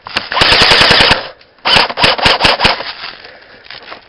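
Airsoft guns firing: a rapid full-auto burst about a second long, then after a short pause a second burst of less evenly spaced shots.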